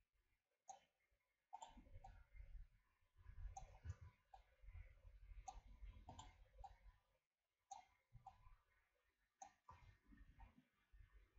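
Faint clicks of a computer mouse and keyboard, a dozen or so spread unevenly, during otherwise near-silent room tone. A faint low rumble runs through the middle.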